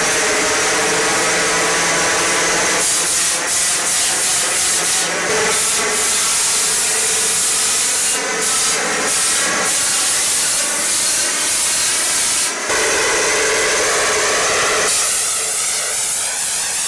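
Sanding machine running, abrasive on steel making a loud, continuous hiss whose tone shifts a few times as the work goes on.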